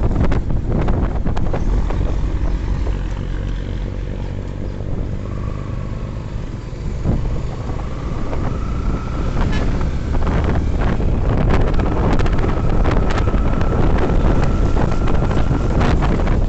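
Wind buffeting the microphone over the low rumble of a motorcycle engine under way, dipping a little partway through, with a faint steady whine in the second half.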